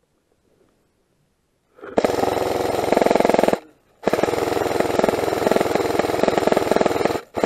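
An airsoft gun firing on full-auto in long bursts. About two seconds in, a rapid, even rattle of shots starts. It runs about a second and a half, stops briefly, then fires again for about three seconds, with another burst starting just before the end.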